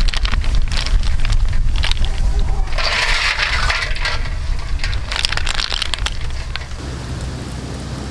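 Snail shells clacking and clattering against each other and the board as they are handled and rinsed by hand, with a burst of water splashing in the bowl about three seconds in. Near the end the clatter stops and a steady hiss is left.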